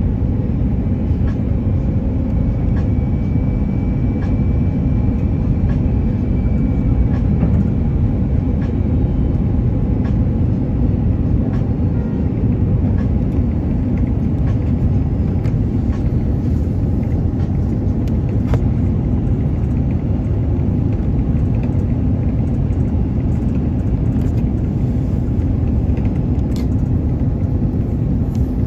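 Airbus A330-300 cabin noise on the landing approach: the steady low rumble of the jet engines and airflow, heard from a window seat inside the cabin.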